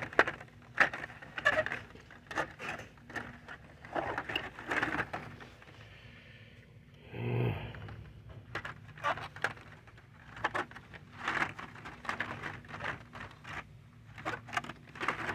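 Hot Wheels cars in plastic blister packs on cardboard cards, clacking and rustling against each other and their metal display pegs as they are flipped through by hand, in irregular clusters of crisp clicks with a short pause about six seconds in. A steady low hum runs underneath.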